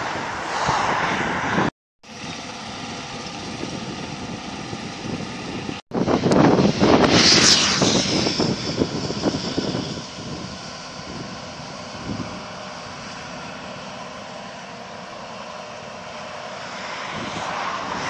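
John Deere S780i tracked combine harvester running as it cuts wheat: a steady machine drone with faint steady tones in it. The sound cuts out completely twice, very briefly, and a louder rushing noise swells for a few seconds after the second break.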